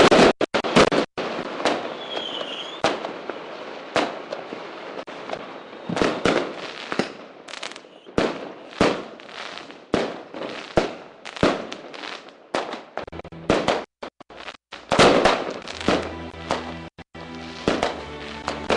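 A radio broadcast playing a run of irregular sharp bangs over a hiss, about one or two a second, with music coming in about fifteen seconds in.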